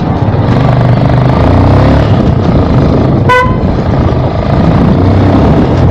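Motorcycle engine running as it is ridden at low speed, with one short horn beep a little past three seconds in.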